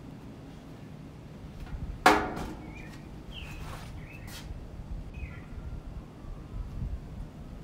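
A few short bird chirps over a low steady rumble, with one sharp knock about two seconds in that rings briefly.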